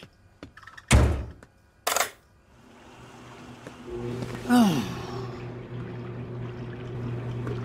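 Front-loading washing machine: the door is knocked shut, with a second knock a second later, then the machine starts its cycle, water pouring in with a rising hiss and a steady low motor hum settling in. A short falling pitched sound cuts in briefly near the middle.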